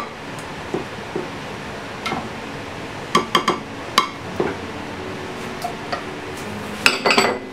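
A black plastic spoon knocking and scraping against a glass baking dish as white sauce is spread over its bottom, in scattered clicks. There is a louder cluster of clatter near the end.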